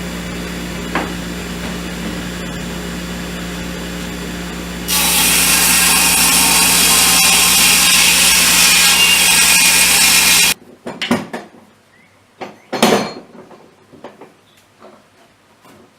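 An electric power tool runs with a steady hum. About five seconds in it bites into wood, much louder, for roughly five seconds, then stops abruptly. A few knocks and scrapes of wood being handled follow.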